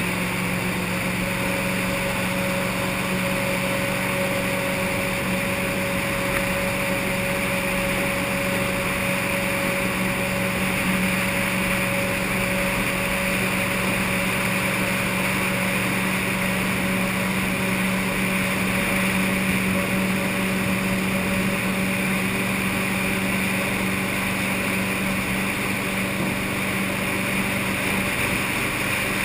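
V8-powered tunnel-hull jet boat running at a steady cruising speed: an even engine drone that holds the same pitch throughout, over a steady rushing hiss.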